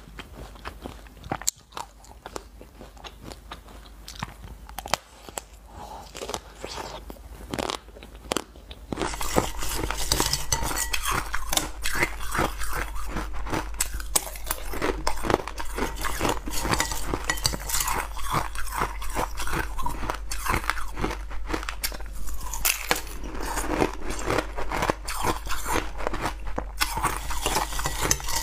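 Close-miked eating sounds: for about the first nine seconds, quieter crackly bites of chocolate-shelled ice cream bars; then, after a sudden jump in loudness, steady loud crunching and chewing of hard frozen green slices.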